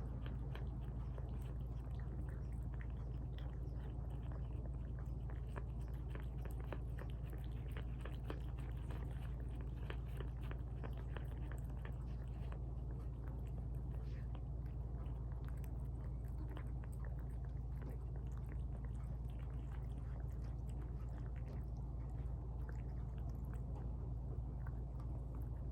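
Cats chewing and eating tuna, a steady stream of small wet clicks and bites.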